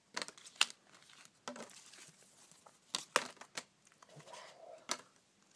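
Trading cards being handled and flipped through: about seven short, crisp crinkles and snaps, with soft rustling between.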